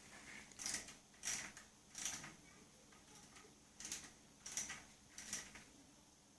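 Six faint, sharp metallic clicks from work on a mini bike's kickstart lever. They come in two groups of three, each click about two-thirds of a second after the last, with a pause of nearly two seconds between the groups.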